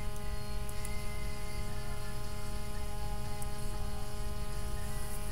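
Steady electrical hum and buzz: a set of unchanging tones over a low rumble, with a couple of faint clicks.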